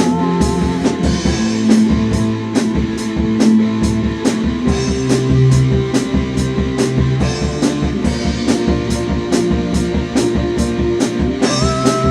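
Instrumental soundtrack music with a steady drum beat under held bass and melody notes.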